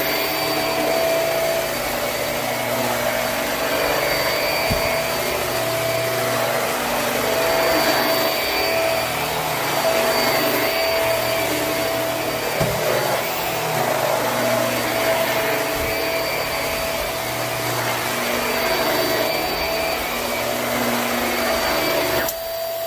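Hoover High Performance Swivel upright vacuum cleaner running on carpet, a steady motor whine over airflow noise. Its lower rumble drops away shortly before the end.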